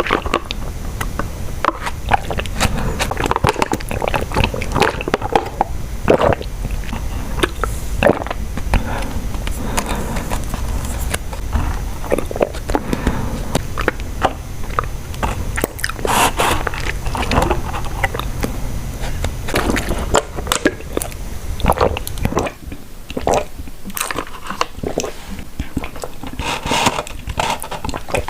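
Close-miked eating sounds: steady chewing and biting with many sharp wet clicks, typical of chewing boba tapioca pearls. A low hum underneath stops about two-thirds of the way through.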